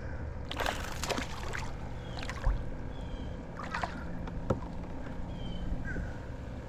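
Sounds of a kayak on the water: wind rumbling on the microphone, a few short splashy rustles and a couple of sharp knocks against the boat, with faint bird chirps.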